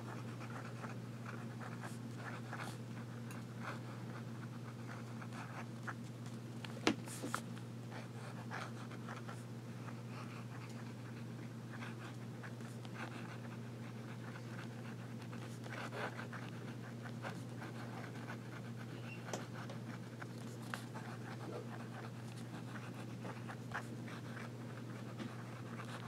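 Fountain pen nib writing upside down (reverse writing) on paper: faint, intermittent scratching of the strokes, with a few light ticks, over a steady low hum.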